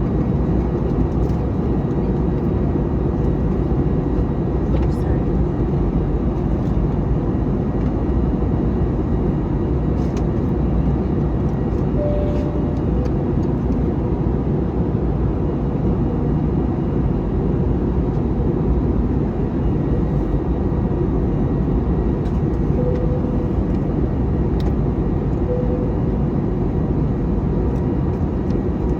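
Steady airliner cabin noise heard from a window seat of an Airbus A321neo: the even rush and drone of the Pratt & Whitney geared turbofans and airflow, with a few faint clicks.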